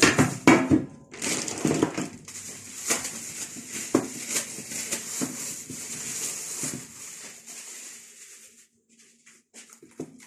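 Plastic cling film crinkling and crackling as it is peeled and pressed off a silicone mould of frozen tomato, with a few sharp knocks in the first couple of seconds. The crackle dies away near the end.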